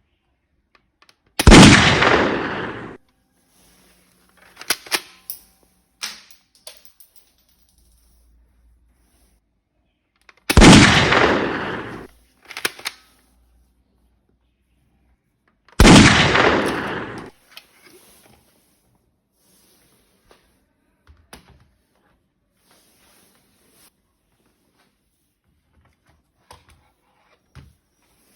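Three gunshot sounds, each ringing out over about a second and a half, from a toy gun. Lighter clicks and knocks come between the shots.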